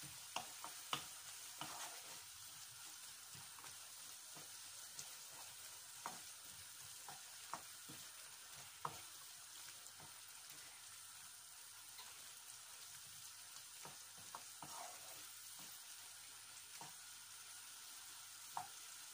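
Onion-tomato masala frying in a non-stick kadai with a faint, steady sizzle while a wooden spoon stirs it. Scattered light taps of the spoon against the pan run through it.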